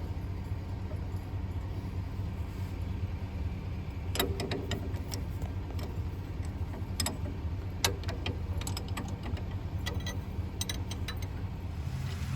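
International 1086 tractor's diesel engine idling steadily, running again after a leaking fuel line was replaced. Several short metallic clinks of wrenches and tools sound over it.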